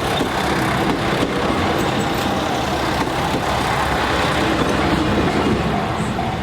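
JR Yosan Line train running past a level crossing: a steady loud rumble and rattle that holds throughout.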